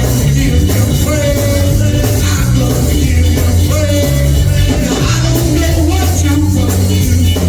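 Church band music with a steady drum beat and a strong bass line.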